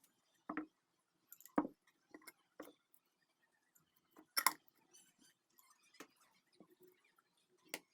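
Irregular clicks and light knocks of small hard objects being handled, with the loudest about half a second in, a second and a half in, past the middle and near the end.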